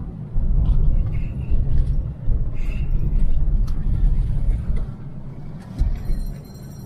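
Loud, uneven low rumble that drops away briefly a few times, with a few faint clicks.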